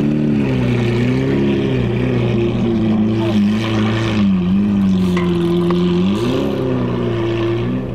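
Lamborghini Aventador's V12 engine through a straight-piped Akrapovic exhaust, running at low revs with its pitch wavering gently up and down under light throttle.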